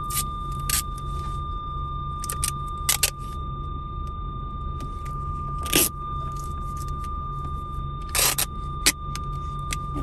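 Continuous high-pitched warning beep from the cab speaker of a Mitsubishi Fuso Super Great truck: the BlueTEC (AdBlue exhaust-cleaning) system fault alarm, which will not stop until the fault is repaired. The driver suspects a faulty BlueTEC sensor. Short crackles and taps sound as tape is pressed over the speaker, and a low steady hum runs underneath.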